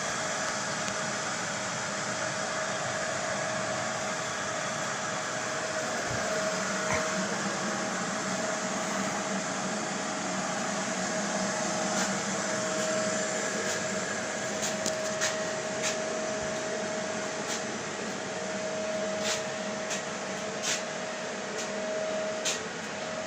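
Steady whirring of a small electric motor with a constant whine, and scattered light clicks from about halfway on.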